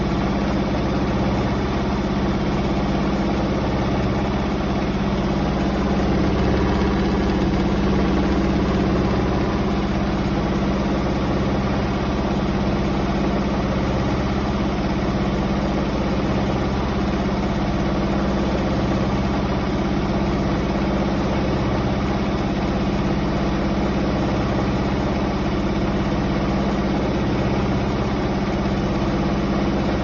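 Hotpoint Ultima Extra WMA64 front-loading washing machine in its wash phase, the drum turning a load in soapy water: a steady motor hum with water sloshing.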